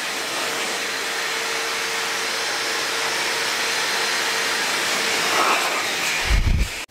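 Dog grooming blower running steadily through its corrugated hose, a continuous rush of air with a faint steady whine, blowing dust off cabinet doors. A short low rumble comes near the end before the sound cuts off.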